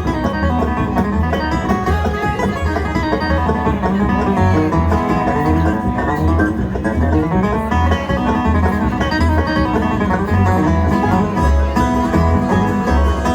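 Live bluegrass band playing an instrumental break with no singing, plucked strings over a steady walking bass line.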